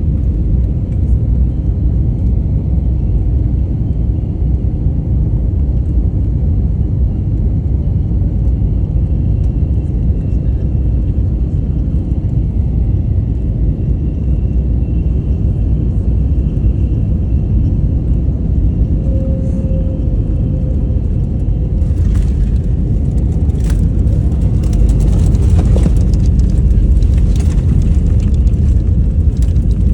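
Cabin noise of an Airbus A321LR Neo coming in to land: a steady low rumble of engines and airflow. About 22 seconds in it grows louder and rougher, with scattered knocks and rattles.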